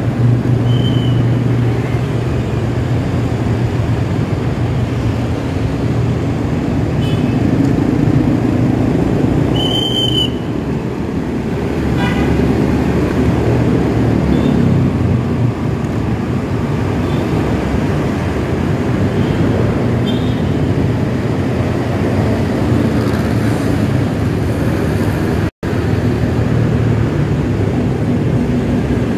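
Steady engine and road noise of a vehicle riding through congested rush-hour traffic, with horns tooting: a short toot about a second in, a louder horn near the middle and a quick string of beeps just after it. The sound cuts out for an instant near the end.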